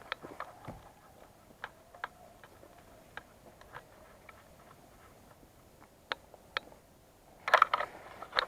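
Scattered sharp clicks a few seconds apart, then a quick run of rapid clicks near the end.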